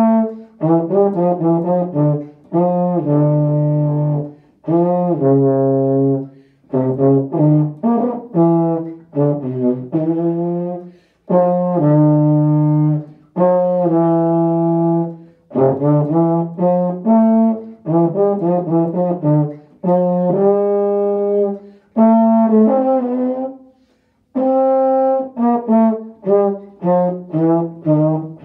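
Unaccompanied euphonium solo: a lyrical melody in the instrument's middle register, played in short phrases of connected notes separated by quick breaths.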